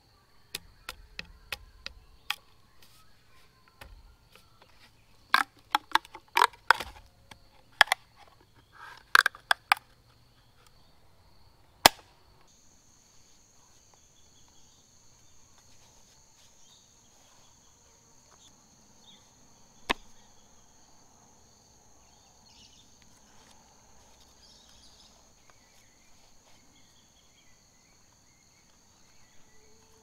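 Sharp clicks and knocks of a Leatherman multi-tool worked against a bamboo tube, several in quick clusters over the first twelve seconds and one more about twenty seconds in. Under them insects trill in a steady high tone, joined by a second, higher one about twelve seconds in.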